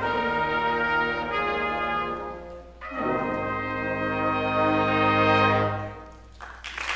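Concert band with brass leading, playing long held chords: one breaks off near three seconds, and a final chord is held for about three seconds and released. Applause starts near the end.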